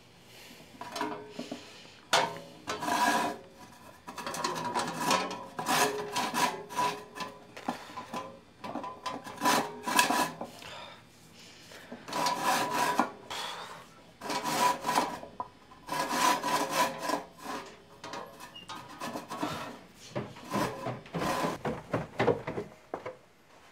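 Handsaw cutting with rapid back-and-forth rasping strokes, coming in several runs separated by short pauses.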